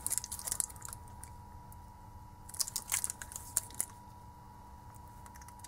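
Crinkling and crackling of the plastic sleeves and stickers on lithium-ion battery cells handled in the hands, in two short spells: one at the start and one from about two and a half to four seconds in. A faint steady high whine runs underneath.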